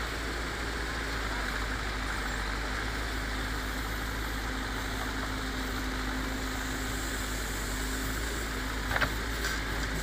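Terex backhoe loader's diesel engine running steadily as the backhoe digs and lifts a bucket of soil, with a short knock near the end.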